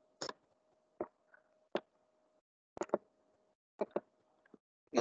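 Scattered clicks of a computer mouse and keyboard, about eight short clicks with some in quick pairs, over a faint steady hum.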